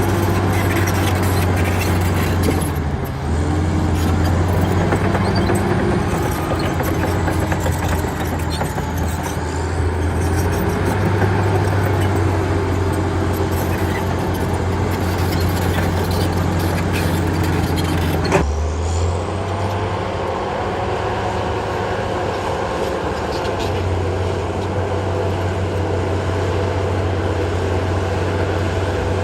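Caterpillar D8R bulldozer's six-cylinder diesel engine running hard while the dozer works, its pitch sagging briefly about three seconds in as it takes load. Past the middle the sound changes abruptly, as at a cut, and the engine runs on steadily.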